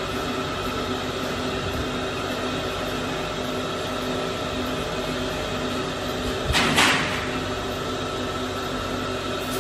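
Steady hum of factory machinery running, with several steady tones in it; a short, louder burst of hiss or rattle comes about six and a half seconds in.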